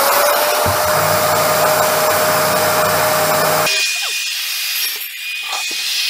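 Angle grinder spinning up to speed and cutting the steel tubing of a mini bike frame, a loud rushing noise over a steady whine. A little under four seconds in it changes abruptly to a quieter sound with a higher steady whine.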